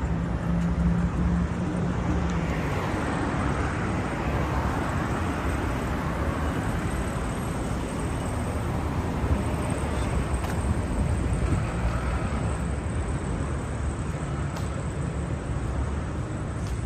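Steady street traffic noise from cars passing on a busy road.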